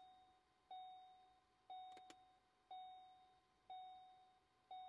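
2016 Ford Focus dashboard warning chime sounding once a second with the ignition on, each chime a single tone that fades away. A couple of sharp clicks come about two seconds in.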